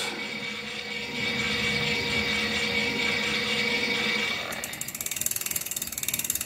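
Early-2000s Powabyke 200 W DC front hub motor running under power with a steady electric hum, which cuts off about four seconds in. The wheel then freewheels, and the hub makes a rapid, even ratchet-like clicking as it coasts.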